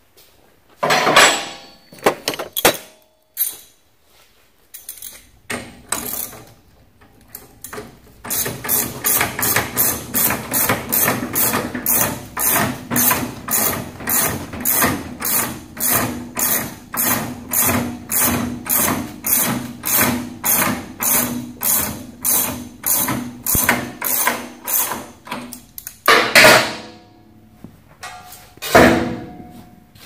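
Socket ratchet wrench clicking in a long steady rhythm, about three strokes a second, as a fastener at a motorcycle's rear wheel hub is worked. There are a few sharp knocks at the start and two louder knocks near the end.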